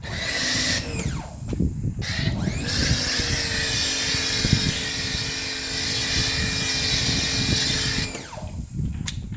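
Electric pressure washer pumping soap through a foam cannon: a short burst, then about five seconds of steady spraying hiss over the motor's hum. Each stretch ends with the motor winding down in pitch.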